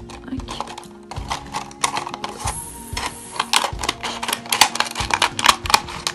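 Scissors cutting through a thin plastic bottle: a run of sharp, irregular snips and crackles of the plastic, coming faster in the second half, over soft background music.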